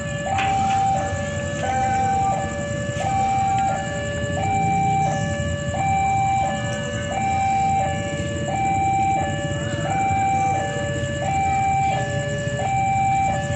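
Railway level-crossing warning alarm: an electronic two-tone chime steadily alternating between a higher and a lower note, each held for under a second, signalling that a train is approaching.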